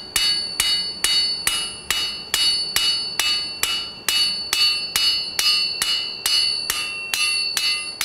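Hand hammer striking a rod on an anvil in a steady rhythm, a little over two blows a second, with each blow ringing. The blacksmith is straightening the hot rod after folding it over.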